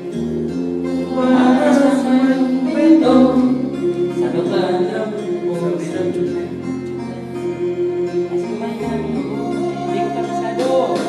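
Karaoke music playing through a sound system, with a singing voice over the accompaniment.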